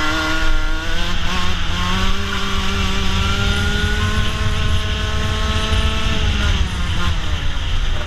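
Racing kart's two-stroke engine heard from onboard, its pitch climbing steadily under full throttle for about six seconds, then falling away as the driver lifts off, and picking up again near the end. Wind rumble on the microphone throughout.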